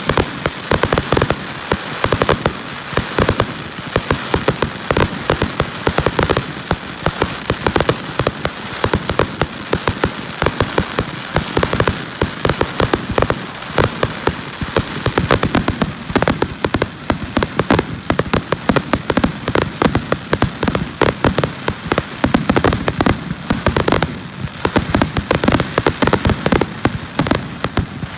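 Aerial fireworks bursting in a dense, continuous barrage of rapid bangs and crackles.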